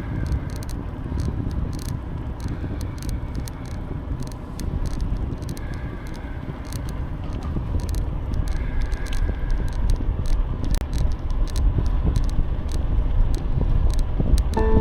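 Riding noise from a bicycle-mounted camera: wind buffeting the microphone and tyres rumbling on the path, with many short clicks and rattles throughout. It grows a little louder toward the end.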